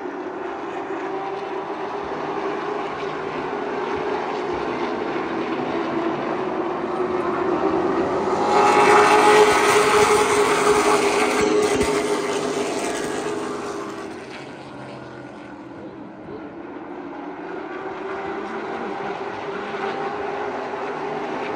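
Engines of a pack of stock race cars circling an oval track in a steady drone. The sound swells loudest about eight to thirteen seconds in as the pack passes close, fades, then builds again near the end.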